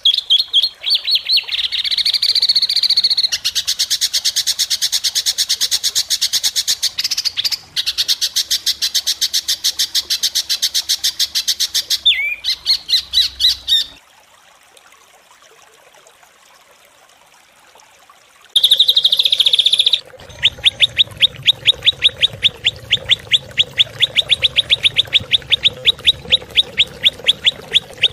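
Songbird recordings from a masteran (a bird-song training track) of harsh, rapid 'tembakan' calls: fast high trills in blocks that start and stop abruptly, a quiet gap about halfway through, then a short loud burst followed by a run of sharp repeated notes about four a second.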